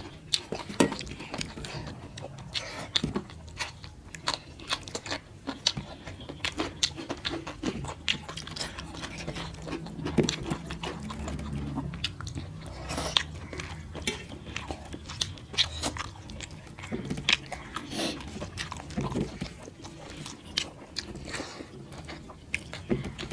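Close-up eating sounds of two people eating rice and chicken liver curry by hand: wet chewing and lip-smacking with an irregular run of short clicks and smacks.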